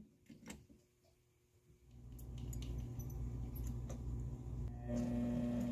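A few light clicks of hands working the lathe's carriage, then about two seconds in a cue-building lathe's motor starts and runs with an even, steady hum. About five seconds in a higher steady tone joins it as the joint-pin hole is drilled into the hickory core.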